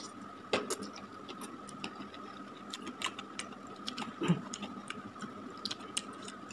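Instant fried noodles being chewed, with a metal fork clicking and scraping irregularly against a ceramic bowl as more noodles are twirled up, one heavier knock a little after four seconds. A faint steady high whine runs underneath.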